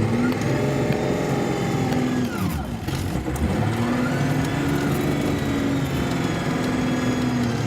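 Skid steer's diesel engine revving up and holding under load, dropping back about two and a half seconds in, then revving up again and holding.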